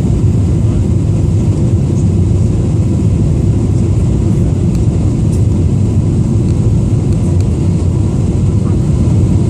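Steady low rumble of engine and airflow noise heard inside the cabin of a Boeing 777-300ER airliner.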